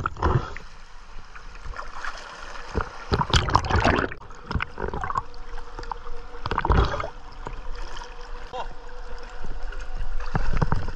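Sea water splashing and sloshing around a swimmer at the surface, in uneven surges with the strongest splashes a few seconds in and about two thirds through, over a faint steady hum.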